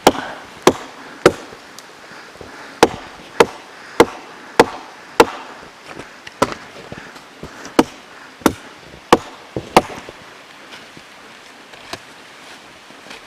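Chopping blows of a blade into a tree trunk for firewood: about a dozen sharp, evenly paced strikes, roughly one every half second with a couple of short pauses, stopping about ten seconds in.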